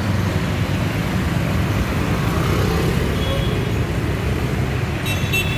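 Street traffic: a steady low engine rumble from cars and motorcycles moving slowly past. Two short, sharp sounds come near the end.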